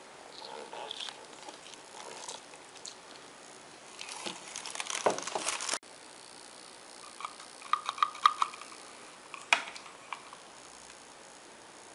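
Clear plastic packaging crinkling and rustling as parts are handled, with scattered sharp clicks and knocks. A dense stretch of crackling stops abruptly about six seconds in, and a burst of sharp clicks and crinkles follows a couple of seconds later.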